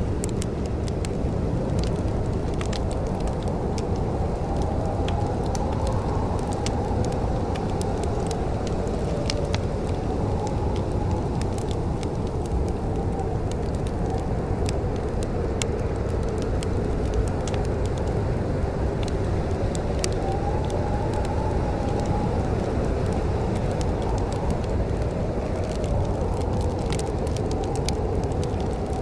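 Wood fire crackling in a fireplace, with scattered sharp pops, over a steady low rumble carrying a slowly rising and falling moaning tone.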